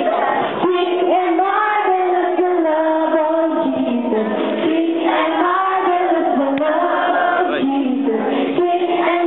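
A group of voices singing together, children's voices among them, holding long, sliding notes.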